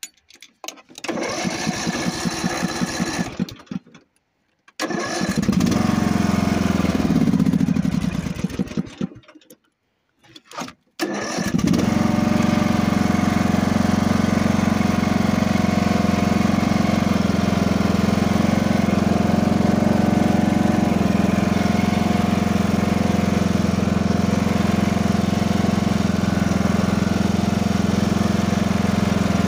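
Riding lawn mower's engine on a cold start after three months unused: it cranks twice without catching, with pauses between tries. About eleven seconds in it catches on the third try and settles into a steady run.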